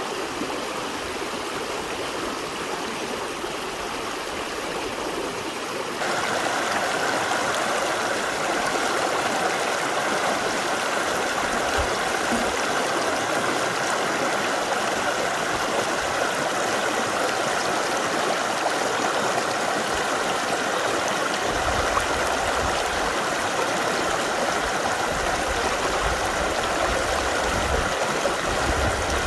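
Mountain valley stream rushing steadily over rocks. About six seconds in it jumps louder and brighter, and a low rumble joins it about two-thirds of the way through.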